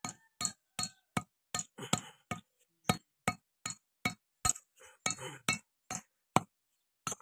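Light metallic tapping, about two to three sharp taps a second, on the gland of a Mahindra Yuvo 415 DI tractor's power-steering cylinder as its new oil seal is tapped into place.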